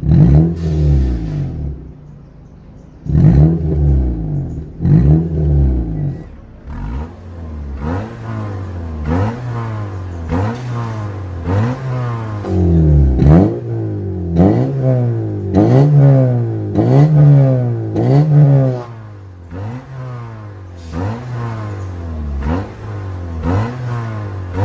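Honda Accord engine revved again and again through an aftermarket valved (valvetronic) exhaust, each blip rising and falling in pitch, with a short pause near the start and then quick revs about once a second. It is first heard in the valve-open "racing" mode, then in the valve-closed standard mode.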